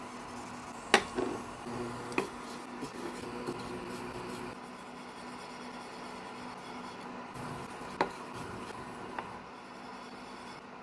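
Sesame seeds rustling and sliding over a dry nonstick frying pan as they are stirred while toasting. Four sharp clicks stand out, two in the first couple of seconds and two near the end.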